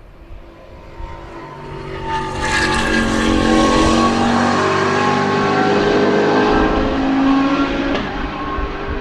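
Hansen GTR race car's 6.0-litre VAG W12 engine under acceleration as the car passes: the engine note builds up over the first couple of seconds, climbs steadily in pitch while loud, and eases off near the end.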